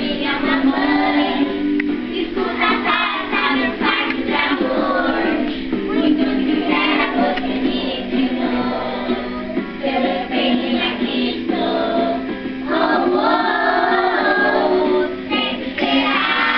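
A group of young children singing a song together over recorded backing music.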